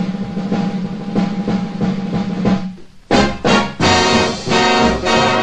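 Big-band music with brass and drums. A held chord fades away a little past halfway, then the band comes back in with loud, punchy brass chords.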